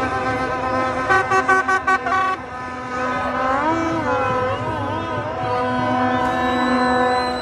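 Horns blaring over a celebrating street crowd: steady held horn tones, broken by a quick run of about five short toots between one and two seconds in, with the crowd's voices underneath.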